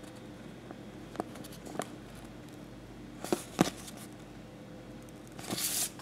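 A sticker sheet being handled: a few soft clicks and crinkles as it is held and turned, then a short rustle near the end as it is moved and laid down.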